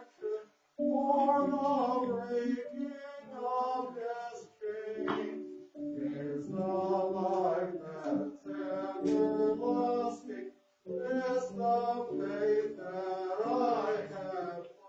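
Small church choir singing in three phrases of about five seconds each, with short breaks for breath between them.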